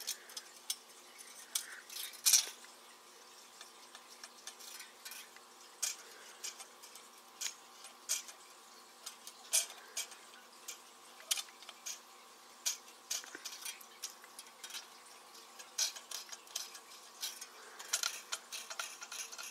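Light, irregular metal clicks and scrapes of a straightedge and feeler gauge blades against a cylinder head's deck while it is checked for warp, with one sharper clink about two seconds in. A faint steady hum lies underneath.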